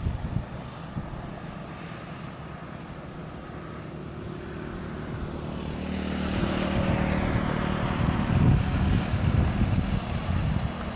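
Diesel truck coming along the highway and passing by: an engine drone with tyre noise that grows louder from about halfway, peaks near the end, and carries a whine falling in pitch as it goes by.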